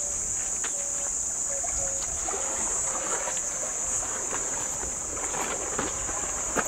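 A steady, high-pitched insect chorus drones over a faint low rumble, with a few faint short tones and soft clicks scattered through it.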